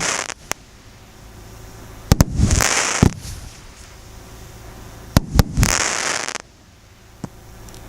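Professional multi-shot firework battery (cake) firing: two shots about three seconds apart, each a sharp bang followed by about a second of hissing, crackling burst.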